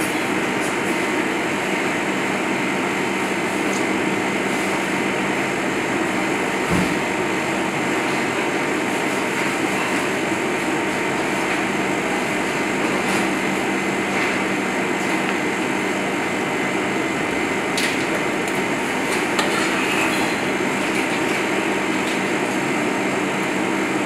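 Steady whir of commercial kitchen ventilation and equipment, a constant rushing noise with a few fixed hum tones. Now and then a small knock or tap, with a low thump about seven seconds in, as a knife trims fish fillets on a plastic cutting board.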